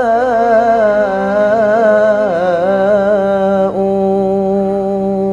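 A man singing an Arabic sholawat devotional song, drawing out one syllable in a long wavering, ornamented melisma. About three and a half seconds in, the line dips and settles into a steady held note.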